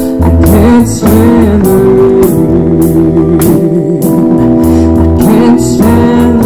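Live band playing a song: acoustic guitar, bass guitar and keyboard over a drum kit keeping time with steady cymbal strokes, with a wavering melody line on top.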